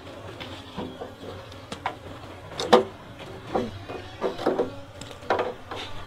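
A wooden hive box being handled and set on a wooden bench: a series of sharp wooden knocks and clunks, about seven in all, the loudest a little under halfway through.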